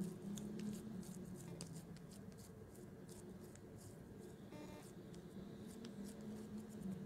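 Raw ground meat being pressed and shaped by hand into a burger patty: soft, faint squishing and small clicks of wet meat against hands and plastic wrap, over a low steady hum.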